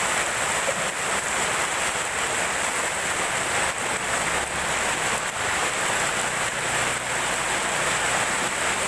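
Heavy tropical rain pouring down steadily and evenly.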